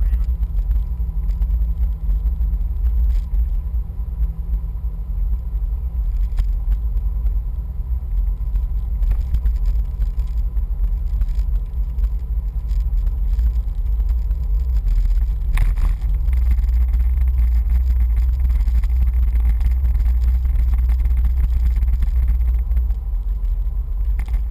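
Steady low rumble of a 2011 Jeep Wrangler Rubicon driving on a paved road, engine and road noise heard from inside the vehicle. A brief sharp sound comes about fifteen seconds in, after which the rumble is louder and steadier.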